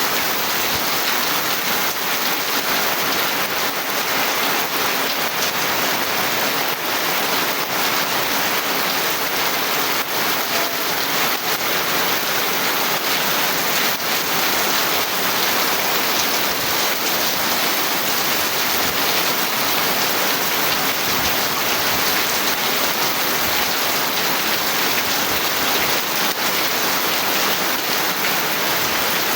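Steady rain falling hard and even, with the fine patter of drops hitting a surface.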